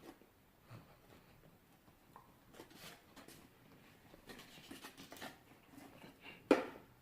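Faint small-room handling sounds: scattered light clicks and rustles, with one sharper knock about six and a half seconds in.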